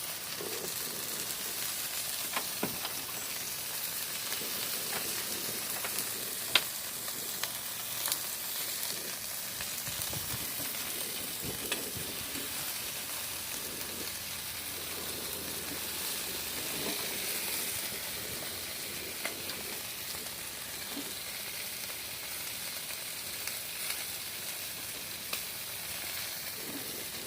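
Food frying on a Blackstone flat-top griddle: a steady sizzling hiss with a few sharp ticks scattered through it.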